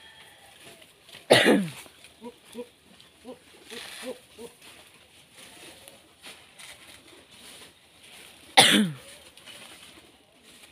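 A dove cooing softly in a short series of low notes. Twice, once near the start and once near the end, a loud, short cry drops steeply in pitch.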